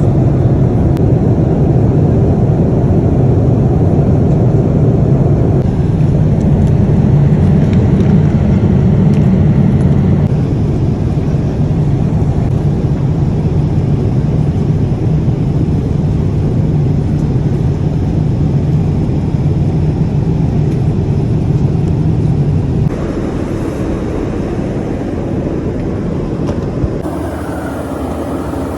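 Jet airliner cabin noise in flight: a steady low rumble of engines and airflow. It drops abruptly in level twice near the end.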